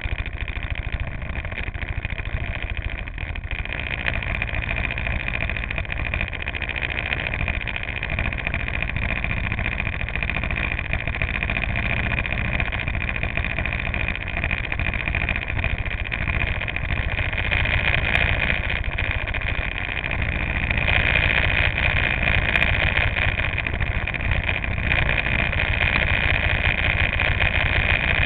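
Go-kart engines idling steadily while the karts stand on the grid, getting louder about twenty seconds in.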